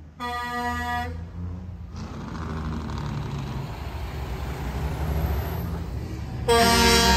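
Semi-truck horns blowing as trucks pass: one horn blast lasting about a second near the start, then a louder blast starting near the end, with passing-truck engine rumble and tyre noise between.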